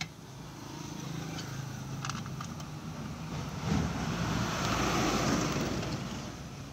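A motor vehicle passing by: a low engine hum with tyre noise that grows louder to a peak about four to five seconds in, then fades.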